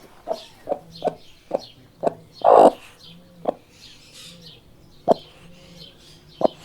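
Hens clucking: a string of short, separate clucks, with one longer, louder call about two and a half seconds in.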